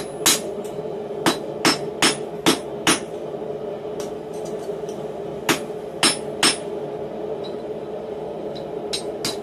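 Hand hammer striking a red-hot steel bar on a steel block held in a vise, each blow a short metallic ring. Six quick blows in the first three seconds, a pause, three more around the middle, and two lighter ones near the end, over a steady low hum.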